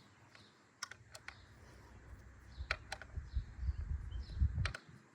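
Scattered sharp metal tool clicks with low handling knocks as the bicycle stem's handlebar clamp bolts are tightened with a torque wrench.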